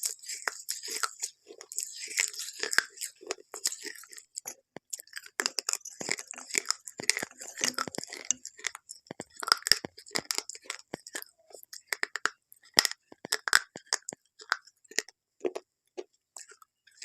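Close-up crunching of something brittle being bitten and chewed, a dense run of sharp, irregular cracks.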